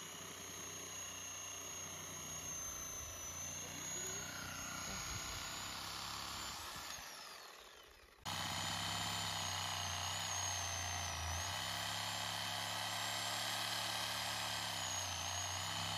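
Handheld cordless power saw running with a steady motor whine while brush is cut. The sound fades out about halfway through, then comes back suddenly, louder and steady, its pitch dipping briefly twice as it takes the load.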